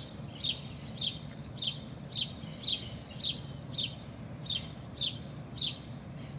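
A bird repeating one short, high, falling chirp at an even pace of about two a second, over a faint steady low hum.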